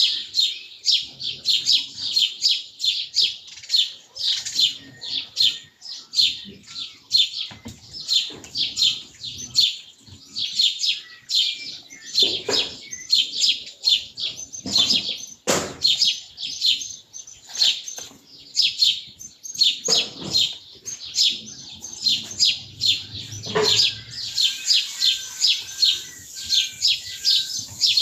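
Songbirds chirping in a rapid, unbroken run of high, short notes, about three a second, with a few sharp knocks scattered among them.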